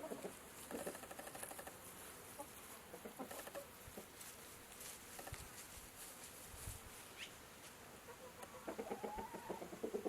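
Chickens clucking: a few short runs of clucks near the start, scattered soft knocks in between, and a longer, louder run of clucking near the end.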